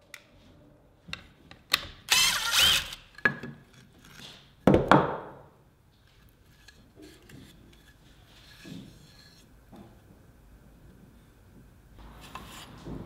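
Cordless DeWalt impact driver run briefly, about a second, a couple of seconds in, amid clicks of tool handling. Then a loud knock and scrape of wooden pieces being moved on the bench.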